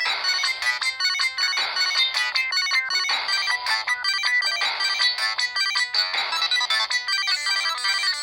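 Preloaded polyphonic ringtone of a Samsung SGH-E720 mobile phone playing: a quick synthesized melody of short notes, its phrase repeating about every second and a half.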